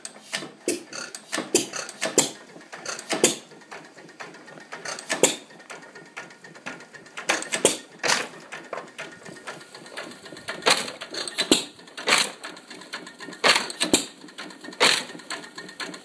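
Antique stationary gas engine running and driving an old wood splitter. Sharp, irregularly spaced bangs come every second or so over a steady mechanical clatter.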